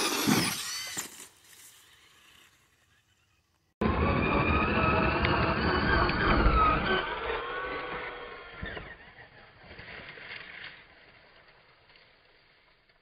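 Traxxas Slash 2WD RC truck's electric motor whining as it is driven at a ramp, its pitch rising and falling with the throttle. A short loud run at the start, then after a cut a longer run of about four seconds that fades as the truck drives off.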